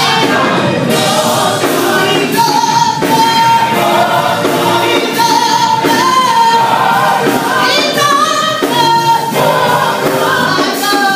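Gospel choir singing, a lead voice holding long notes that slide between pitches above the group.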